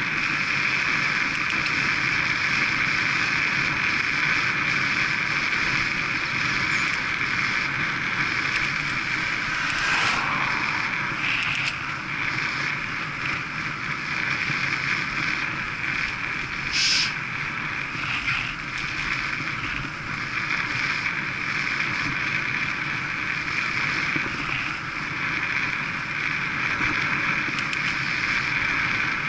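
Road bicycle ridden hard at about 25 mph: steady wind rush and tyre noise on tarmac, with a few brief sharper sounds around the middle.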